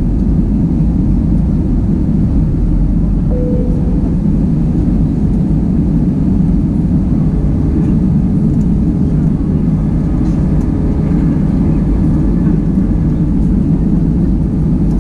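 Steady cabin noise inside an Airbus A320-200 in flight: a loud, low rush of airflow and engines that never changes, with a faint steady tone joining in a few seconds in.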